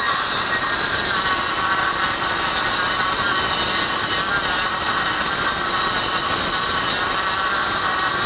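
Kobalt 24-volt 6-1/2-inch cordless circular saw ripping through two stacked half-inch OSB sheets, the motor and blade running steadily under load. It is powered by an 8 amp-hour high-output battery that holds the voltage up and cuts fast.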